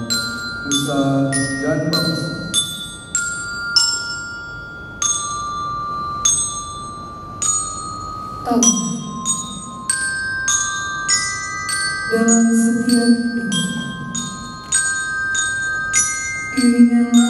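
Music on bell-like mallet percussion: a melody of sharply struck notes, about one to three a second, each ringing on, with lower notes joining in a few times.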